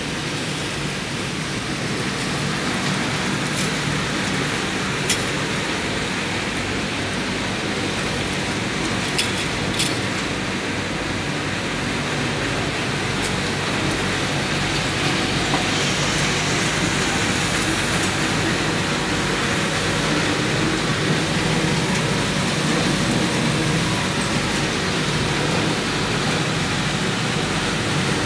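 Machinery of a circuit-board recycling line running as one steady, dense noise, with a few sharp clicks in the first half.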